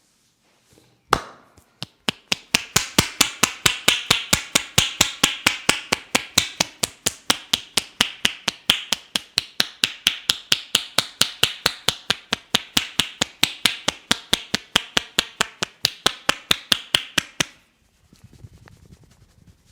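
Rapid, even hand strikes of a barber's chopping and tapping head massage, about five a second, after a single first strike. The strikes stop abruptly near the end.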